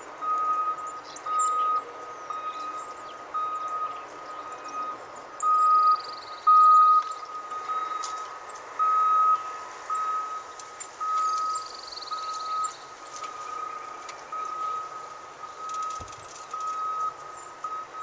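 Heavy construction equipment's backup alarm: a single high-pitched beep repeating steadily, a little more than once a second, the sign of a machine moving in reverse.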